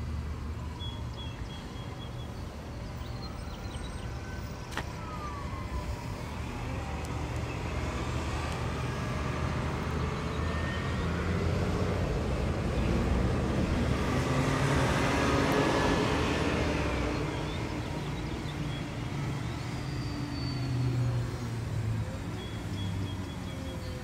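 Road traffic: a car passes, swelling to its loudest a little past halfway and then fading, over a steady low traffic hum.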